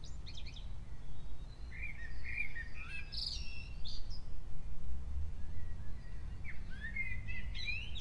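Recorded Eurasian blackbird song played back: short phrases and chirps over a steady low background rumble, cutting off at the end.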